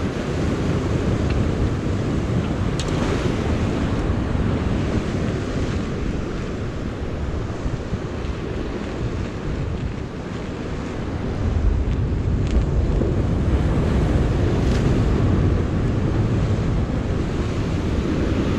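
Surf washing against the boulders of a rock jetty, with wind buffeting the microphone; the low rumble grows louder about eleven seconds in.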